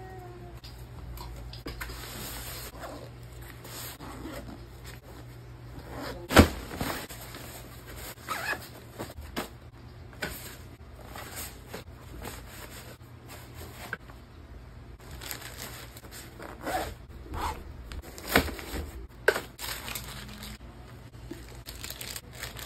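Handling noise of packing a suitcase: rustling of clothes and nylon packing bags, with scattered sharp knocks. The sharpest knock comes about six seconds in and two more come near the end, over a faint steady low hum.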